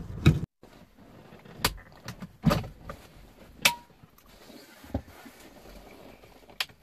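Five or so separate light clicks and knocks, spread out over a few seconds, from hands handling a car's steering-wheel airbag and wheel.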